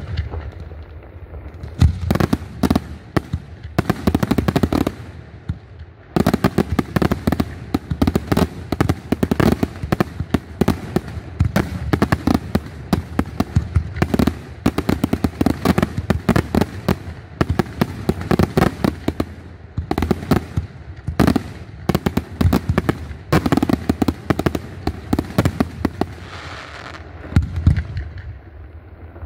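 Aerial fireworks display: shells bursting in rapid volleys, a dense run of sharp bangs and crackles. There are short lulls about a second in and around five seconds in.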